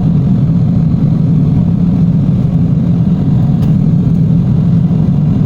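Steady low rumble of an airliner's engines and rushing air, heard inside the passenger cabin in flight.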